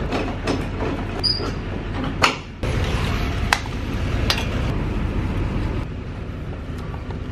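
Sharp metal clicks and clanks of a boat trailer being hitched to a pickup: the trailer coupler, jack and chain hooks being handled, over a steady low rumble. A brief high squeak sounds about a second in.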